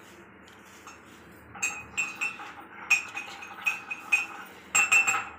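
About a dozen light metallic clinks, each with a short ring at the same pitch, against the rim of an aluminium biryani pot as a hand works over the rice, starting about a second and a half in.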